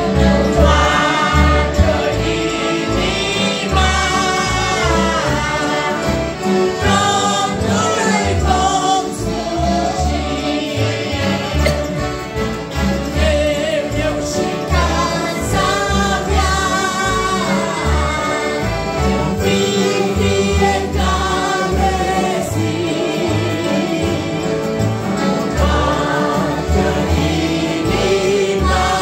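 A mixed group of adult and children's voices singing a Christian hymn together, accompanied by two piano accordions and guitars, over a steady low bass beat.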